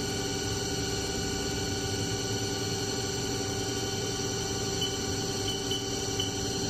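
Haas ST-10 CNC lathe running at a steady speed: a constant machine whine made of several fixed tones over a low hum, with a few faint chirps near the end.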